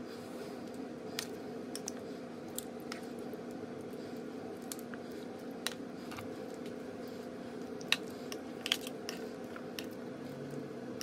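Metal tongs clicking against a glass baking dish and squishing through sauce-coated raw beef ribs as they are turned over: scattered light clicks, two sharper ones near the end, over a steady low hum.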